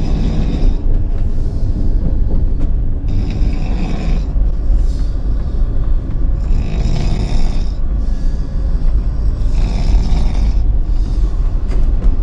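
A person snoring, a breath about every three seconds, over the steady low rumble of the moving train.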